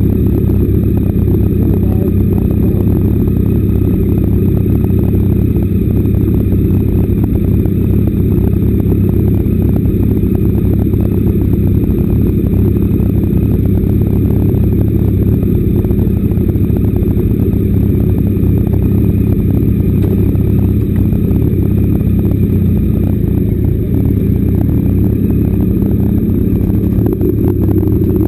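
Motorcycle engine idling steadily, heard close up from a camera mounted on the bike.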